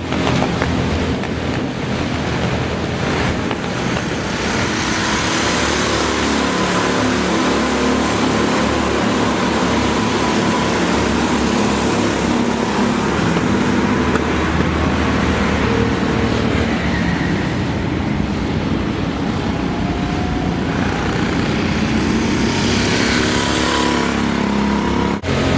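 Go-kart engine running hard, heard close up over a steady rush of wind and road noise, its pitch stepping up and down as the kart speeds up and slows.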